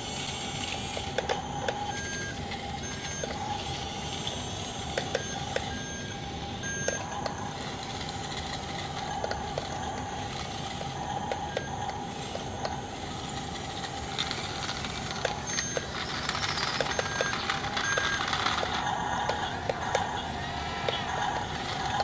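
Yi Gong BC1046 9-channel RC toy bulldozer running on its tracks: a steady electric drive whine, with short electronic beeps from the toy's sound unit repeating now and then. Scattered light clicks as it moves.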